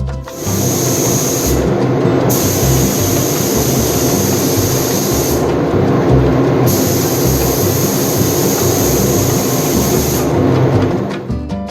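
A loud power tool running steadily, its high whine dropping out briefly three times while the lower grinding noise carries on.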